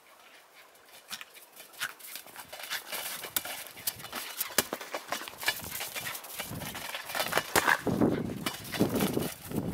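Crunching footsteps in dry, frozen snow, irregular and growing busier, as a Jack Russell terrier scampers after a football and the person filming walks behind. Louder, deeper rustling fills the last few seconds.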